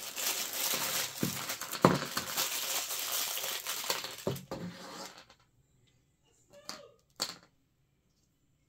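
Thin clear plastic packaging crinkling as it is unwrapped from small plastic toy accessories for about five seconds, with a few sharper clicks. It then stops, and two small taps follow near the end.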